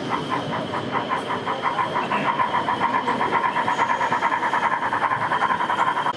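Model steam tank locomotive's DCC sound decoder playing exhaust chuffs that quicken from about three to about eight a second as the locomotive picks up speed, over a steady high tone.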